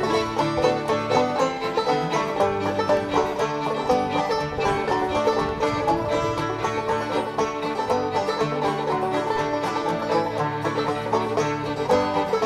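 Background music: fast, busy plucked banjo in a bluegrass style, playing steadily.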